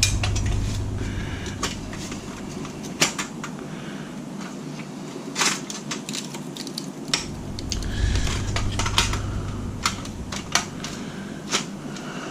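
A flathead screwdriver turning a screw out of a plastic game console case, with scattered sharp clicks and taps as the screwdriver and case are handled, over a low steady hum.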